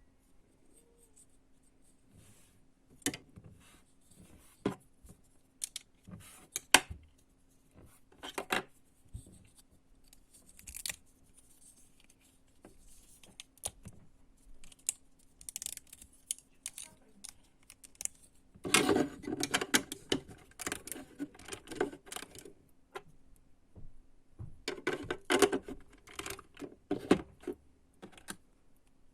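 Plastic Lego bricks being handled: scattered clicks and taps, with two longer spells of rattling pieces, one about two-thirds through and one near the end, over a faint steady hum.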